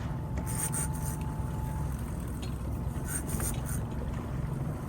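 A boat's engine idling with a steady low hum, with a few faint ticks over it.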